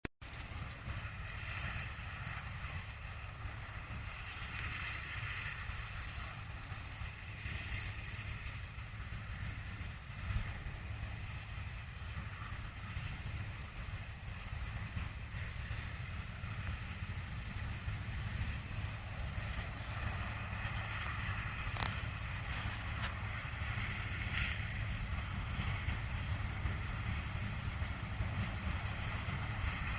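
Harvesting machinery running steadily in a corn field: a constant low engine rumble with a rushing hiss above it, and one brief click partway through.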